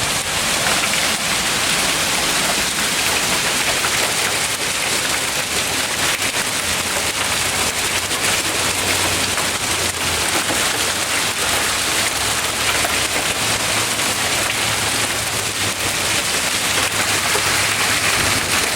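Heavy hail and rain pelting down: a loud, steady, dense hiss made of countless small impacts.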